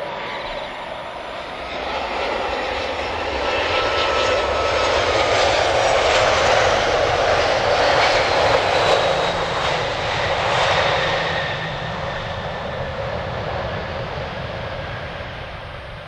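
Boeing 737-800's CFM56 jet engines on landing: a steady jet rumble that swells to its loudest about six to eleven seconds in as the airliner rolls past close by, with a whine falling in pitch, then fades as it rolls away.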